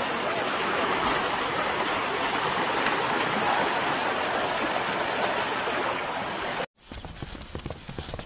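Steady rushing of a flowing river. About two-thirds of the way through it cuts off, and a quieter run of quick, sharp ticks follows: the hooves of a running herd on dry ground.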